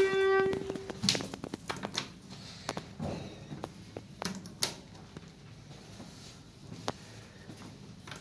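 The lower second note of a Schindler 330a hydraulic elevator's falling two-tone chime rings out and stops about half a second in. Scattered light clicks and knocks follow.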